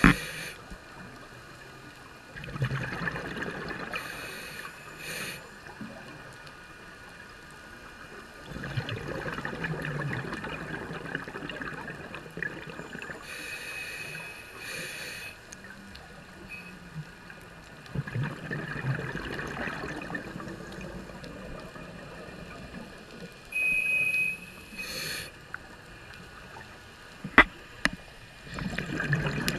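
Underwater sound of scuba breathing through a regulator. Exhaled bubbles gurgle in surges lasting a few seconds, coming every eight to ten seconds, with shorter hisses between them and a couple of sharp clicks near the end.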